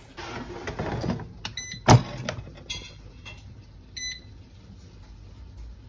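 An air fryer's basket scraping and then going in with one sharp, loud clack, followed by two short electronic beeps from the air fryer's touch panel as the temperature and time are set.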